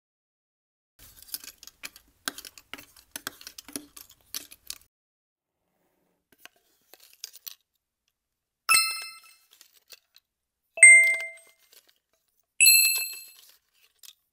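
Light crackling and clicking, then three bright bell-like dings at different pitches, about two seconds apart, each ringing out briefly.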